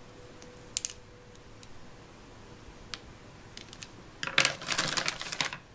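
Hard plastic toy pieces clicking as they are handled: a few faint single clicks, then a quick clattering rattle about four seconds in as pieces are set down on the table.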